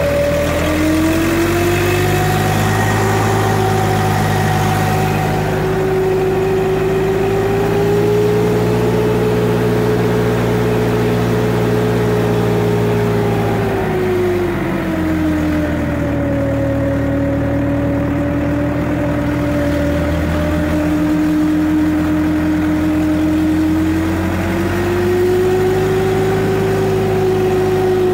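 Farm tractor engine running steadily in second gear while towing a heavy wooden leveling beam. A whine over the engine note drops in pitch about halfway through and rises back near the end as the engine speed eases and picks up again.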